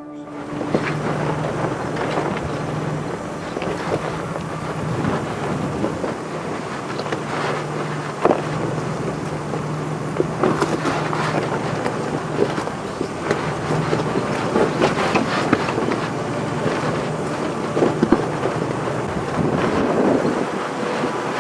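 Four-wheel-drive vehicle driving along a rough dirt trail: a steady low engine hum with the rattle and frequent knocks of the vehicle jolting over rocks and ruts.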